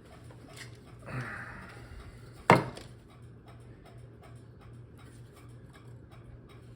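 A hand-forged saw blade cutting wood: one short scraping stroke about a second in, then a single sharp knock, with faint light ticks throughout.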